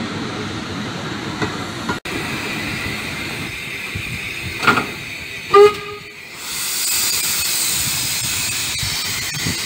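A railway coach rolling past on the rails. Then a saddle-tank steam locomotive gives one short, loud whistle toot about halfway through, followed by a steady hiss of steam from its open cylinder drain cocks.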